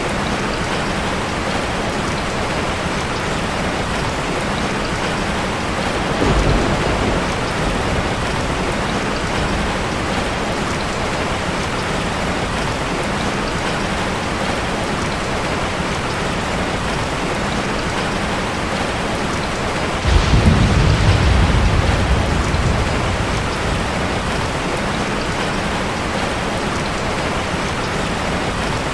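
Heavy rain falling steadily, with thunder: a short rumble about six seconds in and a louder clap about twenty seconds in that rumbles on for a few seconds before fading.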